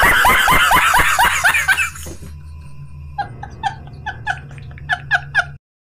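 A man laughing hard: loud, rapid bursts of laughter for about two seconds, then softer, higher, spaced-out laughs. The laughter cuts off abruptly about five and a half seconds in.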